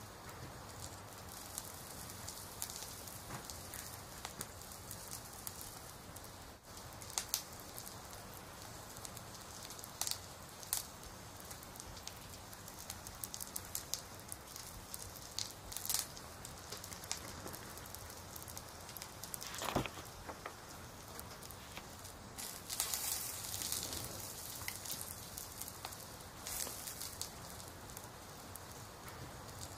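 Soft crackling: a steady hiss with scattered small crackles and ticks and a few louder pops.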